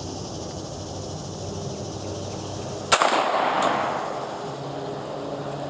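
A single 9mm Hi-Point pistol shot about three seconds in, its echo trailing off over about a second.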